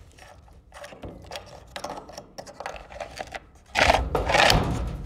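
Battery pack being slid into a model helicopter's carbon-fibre frame: small clicks and scrapes, then a louder scraping slide about four seconds in as the pack is pushed home.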